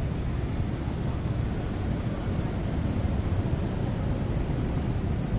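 Motorbike and car traffic at a busy intersection: a steady low rumble of engines and road noise close around.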